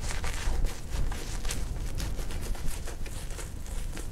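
Shaving brush swirling lather over the face, a rhythmic wet swishing of bristles in quick irregular strokes: re-lathering for the second pass of a wet shave.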